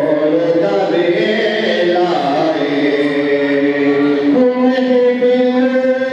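A man's voice chanting a Punjabi naat, a devotional song in praise of the Prophet, into a microphone, in a wavering, ornamented melody; about four seconds in, one steady sustained tone takes over.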